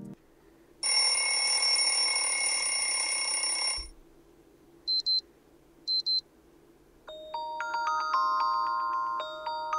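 Alarm tones from a Xiaomi Mi 10T's speaker, previewed one after another. A steady buzzing alarm tone sounds for about three seconds and cuts off, two short high double beeps follow, and near the end a chiming melody of bell-like notes begins.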